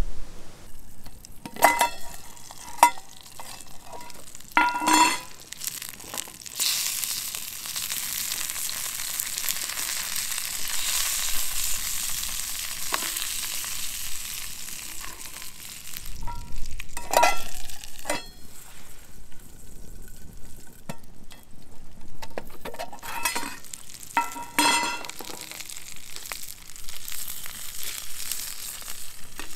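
Food sizzling as it fries in a pan, the hiss swelling for several seconds in the middle. A metal utensil clinks and scrapes against the pan in a few short clusters.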